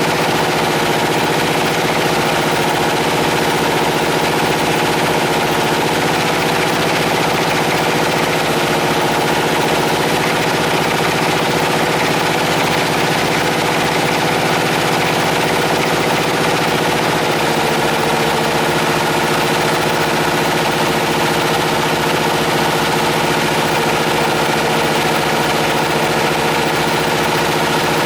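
Homemade air compressor running steadily, a continuous machine drone with a rapid, even pulsing.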